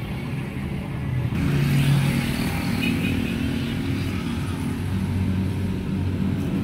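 Passing road traffic: a motor vehicle engine running steadily, growing louder and noisier about a second and a half in.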